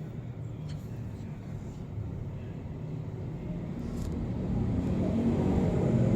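A low motor rumble, growing steadily louder, with a few faint clicks.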